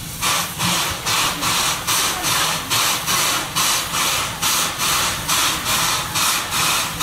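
Steam locomotive C11 123 chuffing as it works slowly along with two coaches in tow: an even beat of hissing exhaust puffs, about three a second.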